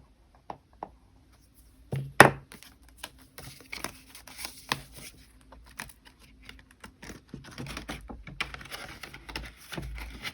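Paper bills and cash envelopes rustling and crinkling as they are handled, with scattered light clicks and one sharp knock about two seconds in.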